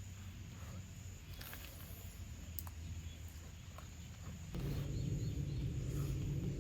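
Outdoor ambience: a steady high insect drone with a few scattered faint clicks and short bird chirps. A low rushing noise comes in about four and a half seconds in.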